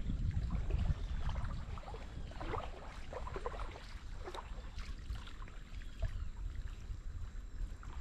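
Wind rumbling on the microphone over water sloshing, with a few faint short calls in between.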